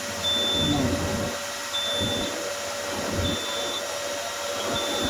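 Electronic beeper of a fire alarm system giving short, high beeps of one pitch, four of them about a second and a half apart, over a steady hum and hiss.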